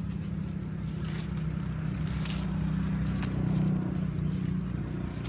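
A steady low hum, like a motor running, with a few light clicks and rustles over it; the hum swells a little just after the middle.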